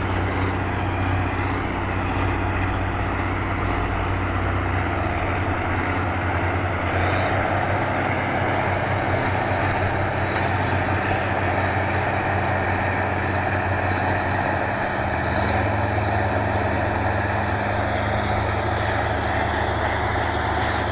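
Large farm tractor's diesel engine running steadily under load while ploughing, its low engine note shifting slightly about 5 seconds in and again about 15 seconds in.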